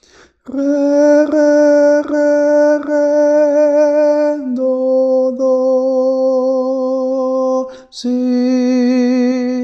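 A man slowly singing the notes of a recorder melody in long held tones: four on one pitch, then two a step lower, then one a step below that (re, re, re, re, do, do, si).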